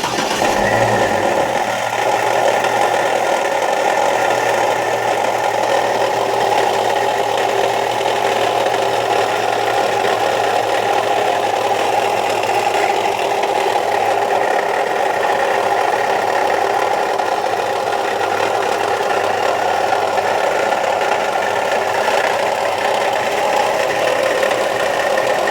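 2003 Chevy Trailblazer engine running steadily with a rattling, knocking clatter. The noise persists after the fan clutch was replaced, so the fan clutch is not its cause.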